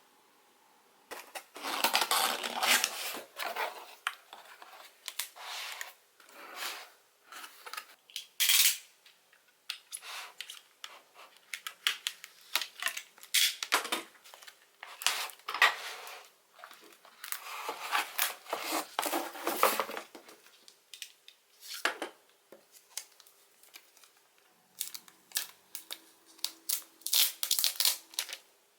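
Hands opening and handling iPhone 12 Pro packaging: irregular taps, scrapes, rustling and tearing of paper and card, in short bursts separated by quiet pauses.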